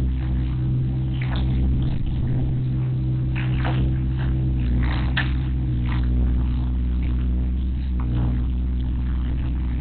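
JCB mini excavator's diesel engine running steadily, with several short higher-pitched scraping sounds over it.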